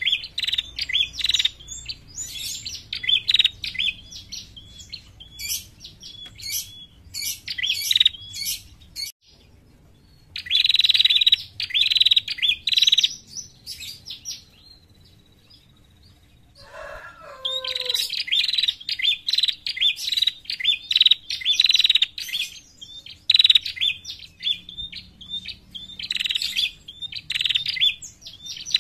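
Female prenjak (ashy tailorbird) calling in fast, dry chattering runs of high notes, over and over. The runs break off twice for a few seconds, about a third and halfway in. In the second pause a faint thin whistle and a short falling call are heard.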